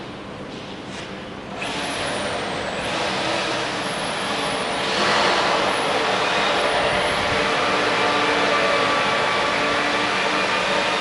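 Workshop machinery starting up about a second and a half in and getting louder again around five seconds, then running steadily with a layered motor hum and whine.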